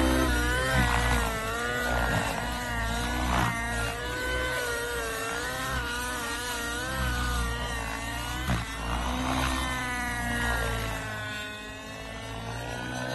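Nitro-engined radio-controlled helicopter, a Tron 700 Nitro, running in flight. The engine pitch keeps rising and falling every second or two.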